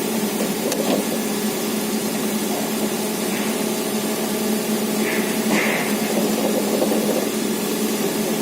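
Wood-Mizer LT40 Super Hydraulic sawmill's engine running steadily with an even hum.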